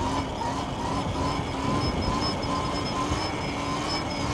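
Sur-Ron electric dirt bike's motor whining steadily while riding, its pitch wavering slightly with speed, over a dense rumble of wind on the microphone.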